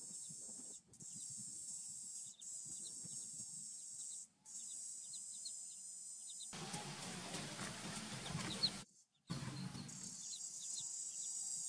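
Ducklings peeping in short high chirps over a steady high insect drone. From about six and a half to nine seconds a louder rustling, scraping noise comes in, ending in a sharp click.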